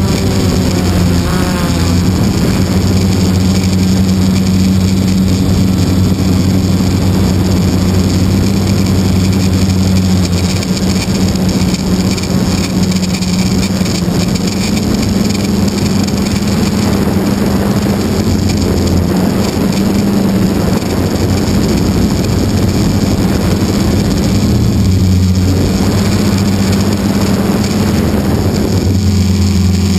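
Model airplane's motor and propeller droning steadily as heard from a camera on board in flight, with a rush of wind over the microphone; the pitch shifts slightly now and then as the throttle changes.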